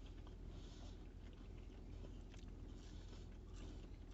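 Faint chewing of a crispy fried chicken sandwich: soft crunches and scattered mouth clicks over a low steady hum.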